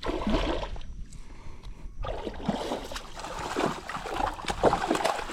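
Water splashing and sloshing beside a kayak as a large hooked trout thrashes at the surface while being landed, over a low wind rumble on the microphone.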